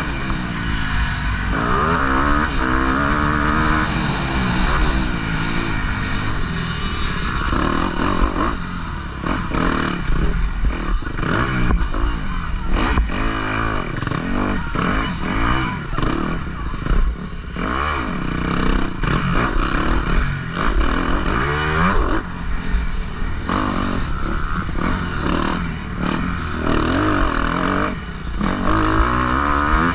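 Motocross bike engine heard from a helmet-mounted camera while racing. Its pitch rises and falls over and over as the rider accelerates and backs off.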